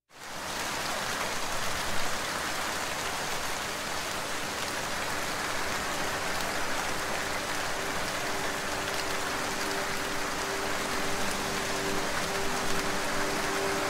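Steady rain falling on a surface, an even hiss that comes in right at the start. A soft, held low musical chord joins in about halfway through.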